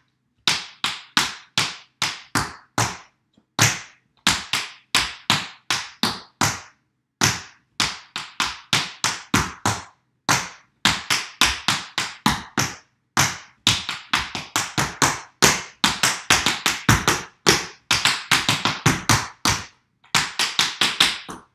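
Tap shoes' metal taps striking a wooden floor in a repeated footwork pattern of taps and hops: sharp clicks in quick groups of three to five with short gaps, coming faster and closer together in the second half.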